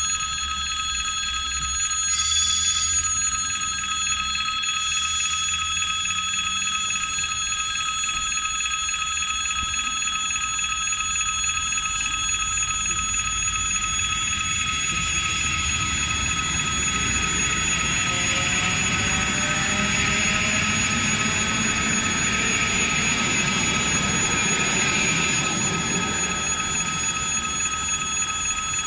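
Railway crossing warning bell ringing continuously on one steady pitch. From about halfway an electric commuter train approaches and passes, its rumble and hiss growing to the loudest point near the end, with a faint rising motor whine.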